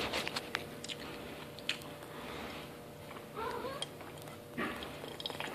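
Eating frosted mini-wheats cereal: chewing with a few sharp clicks of a spoon, and a short wavering squeak about three and a half seconds in.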